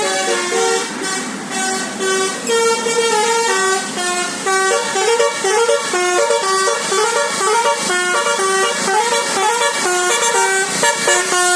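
Telolet basuri musical bus horn playing a fast melody, its horn notes stepping up and down several times a second.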